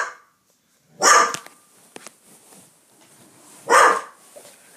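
A dog barking twice, single short barks about two and a half seconds apart.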